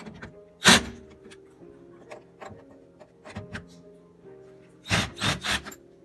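Background music with held guitar-like tones, over which a screwdriver knocks and clatters against the microwave's sheet-metal top panel while the screws are loosened. There is one loud knock about a second in and a short cluster of three or four near the end.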